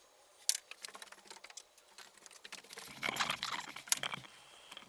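Light, scattered clicks and taps of a 1/8-inch strap and a spacer being handled and set in place against a door rail, busiest about three seconds in.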